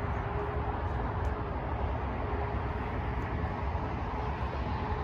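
Steady low rumble of distant road traffic, with a faint steady hum.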